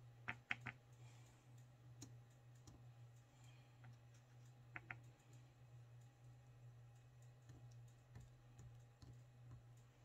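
Near silence over a low steady hum, broken by a few faint light taps of a paintbrush handle dabbing acrylic paint dots onto wooden clothespins: three quick taps near the start, one at about two seconds, and a pair about halfway through.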